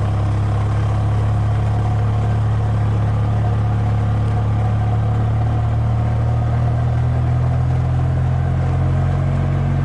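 Steady low motor hum, rising slightly in pitch about six seconds in.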